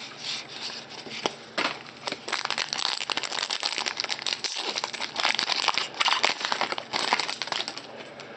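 A foil trading card pack's wrapper crinkling and tearing as it is ripped open by hand. A few soft card clicks come first, then dense crackling runs on for about six seconds.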